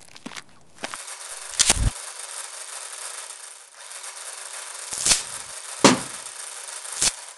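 Firemen's power rescue tool running with a steady hiss and a low hum, broken by four sharp loud cracks as it works through the car's metal.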